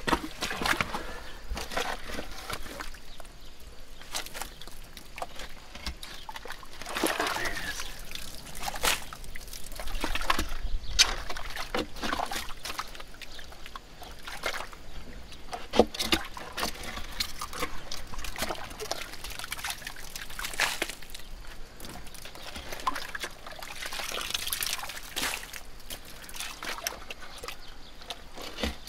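Gloved hands and a small plastic scoop working through muddy water in a flooded privy pit: irregular sloshing, squelching and trickling, with scattered sharp clicks and knocks.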